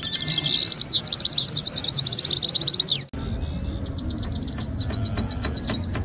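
Grey-headed goldfinches singing: fast, high twittering and trills. About three seconds in the sound cuts abruptly to a quieter stretch of the same twittering over a steady low background noise.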